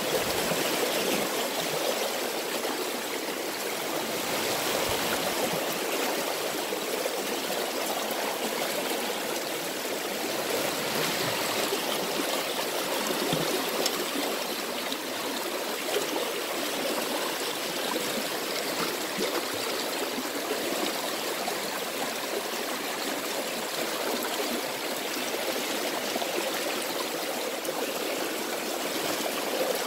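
A fast-flowing river rushing steadily.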